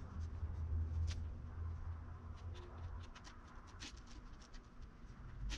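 Faint, scattered clicks and scratching of fingers working sculpting clay on a dog's head, with a low hum that stops about halfway through.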